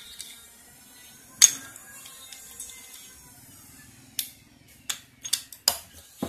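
Faint background music, with sharp clicks and taps of rear shock absorber parts being handled during reassembly: one loud click about a second and a half in and a quick run of clicks near the end.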